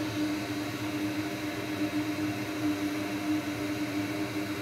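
Loud bench fume extractor fan running steadily: an even rush of air with a constant hum.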